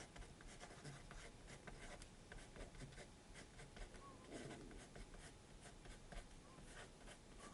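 0.9 mm HB graphite lead in a Kokuyo PS-P100 mechanical pencil writing letters on paper: a quick, faint run of short scratching strokes.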